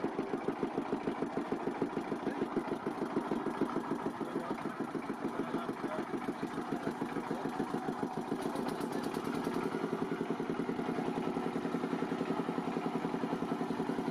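A small engine running steadily with an even, rapid thumping beat.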